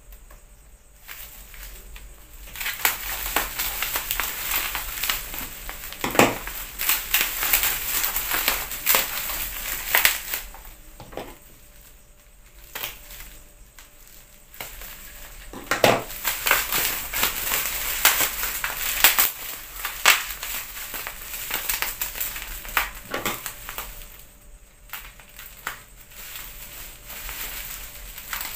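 Plastic bubble wrap crinkling and crackling as it is pulled and unwrapped by hand, in stretches with short lulls between them and a few sharper cracks.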